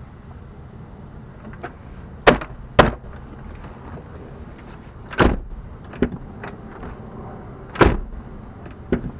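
Door latch of a 2006 Buick Rendezvous being worked with its newly replaced inside handle, giving several sharp clunks: a quick pair about two seconds in, then single clunks near five and eight seconds, with lighter clicks between. The latch releasing shows the new handle now opens the door.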